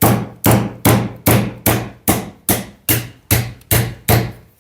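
A small hammer tapping the handle of a screwdriver held on one of a coconut's eyes, punching a hole to drain the water. There are about eleven sharp, evenly spaced strikes, a little over two a second, each with a short ring.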